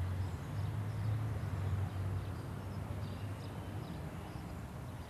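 Outdoor ambience: a low, steady hum that slowly fades over a few seconds, with a few faint high chirps.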